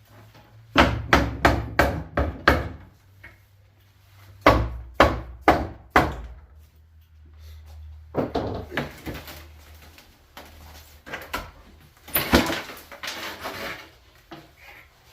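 Hammer blows on a wooden shipping crate being knocked open: a quick run of about six strikes, then four more. These are followed by boards and packing being scraped and clattered about.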